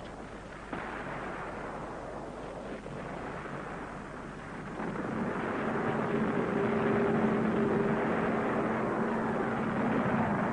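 A dense rumbling noise of a wartime sound-effects track, joined about halfway through by a steady engine drone of a propeller aircraft that grows louder and dips slightly in pitch near the end.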